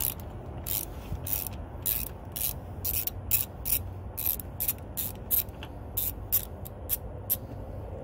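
Ratcheting wrench clicking as a bolt is backed out, a quick uneven run of about two to three clicks a second that stops near the end.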